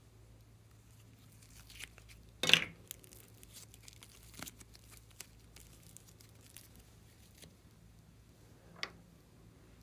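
Pink glitter slime peeled out of a small plastic tub: one short sticky tearing sound about two and a half seconds in, then faint crackles as it is stretched, and a light tap near the end.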